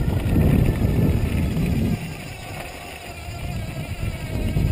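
Cyclone 360 W electric bike kit motor whining under load on a steep gravel climb, the bike in first gear and not pedalled, with a low rumble of wind and tyres on the microphone. About two seconds in the rumble drops away and the motor's steady whine comes through plainly, its pitch sagging slightly as the bike slows.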